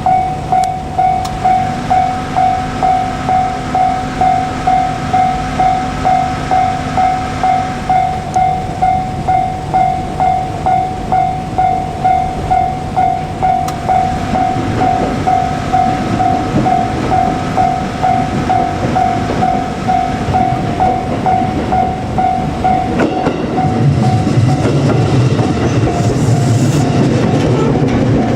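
Japanese level-crossing warning bell ringing in an even repeating ding-ding. Near the end a train's rumble rises and covers it as the train reaches the crossing.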